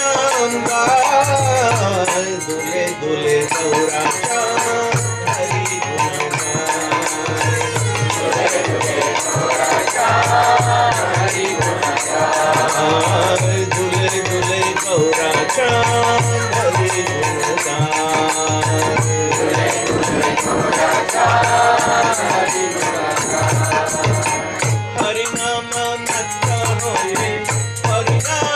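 A man singing a Bengali devotional bhajan into a microphone, his melody rising and falling in long sung phrases, over a steady rhythm of jingling percussion.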